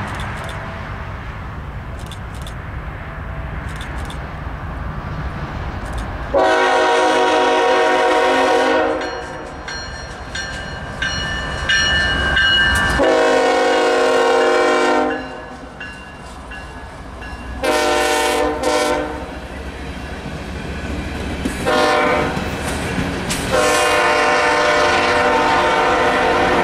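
Diesel locomotive multi-chime air horn blowing in the grade-crossing pattern: two long blasts, a short one, a brief tap, then a final long blast that carries on. Underneath is the deep rumble of the BNSF GE locomotive's diesel engine and the steady clatter of coal hopper wheels on the rails as the lead unit passes close by.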